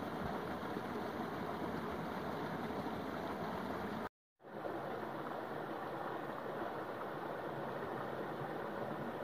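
Creek water rushing steadily over rocks. It cuts out for a moment about four seconds in, then fades back in.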